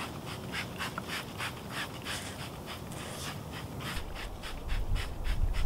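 Hand trigger spray bottle pumped rapidly, short squirts of mist at about four or five a second. A low rumble builds near the end.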